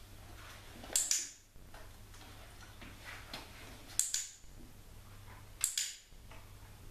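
Handheld dog-training clicker clicking three times, about a second in, at about four seconds and near six seconds, some as a quick double click, with a faint steady hum beneath.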